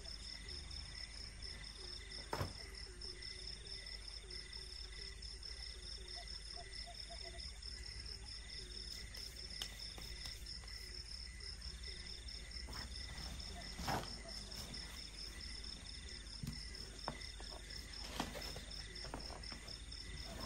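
Night insects calling steadily: a fast, high, pulsing cricket chirp with a second insect trilling in short repeated phrases. A few sharp knocks and rustles from handling gear close by, loudest about 14 seconds in.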